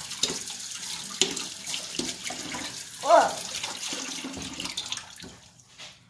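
Kitchen tap running into a sink while a spoon is rinsed under it, with a few sharp knocks of metal on the sink; the water stops near the end.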